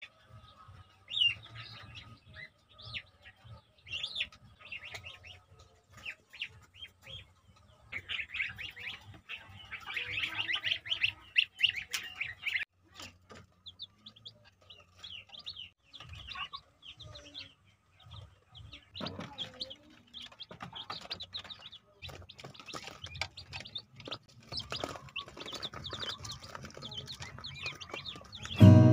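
Newly hatched chicks peeping: many short, high chirps, thickest for a few seconds in the middle, with occasional soft taps.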